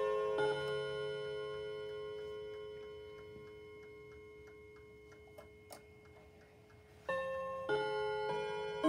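Seth Thomas mantle clock's chime rods ringing and dying away, with the movement ticking about three times a second. A couple of sharp clicks come as the minute hand is turned by hand, and the chime starts again about seven seconds in with three struck notes.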